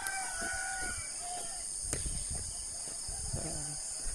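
Steady, high, shrill chorus of insects, with scattered low thumps and rumble underneath.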